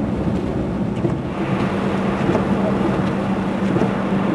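Car cabin noise while driving on snow-covered roads: a steady engine hum under tyre and road noise, the hiss growing a little about a second in.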